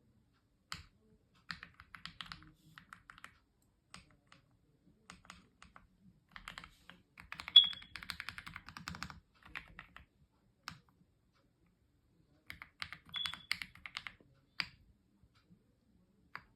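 Aula F99 mechanical keyboard being typed on in bursts of keystrokes with short pauses, the fastest, densest run about six to nine seconds in, then a few single key presses near the end.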